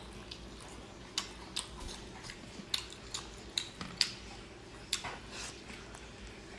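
About seven sharp, irregular clicks over a few seconds from handling and eating a large cooked sea snail at the table, over a faint steady hum.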